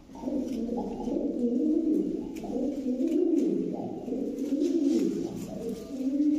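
Domestic fancy pigeons cooing steadily, low-pitched coos rising and falling in repeated swells.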